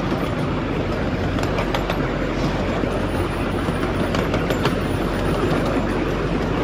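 Steady rumble of a moving train, with a few faint clicks from the wheels over the rails.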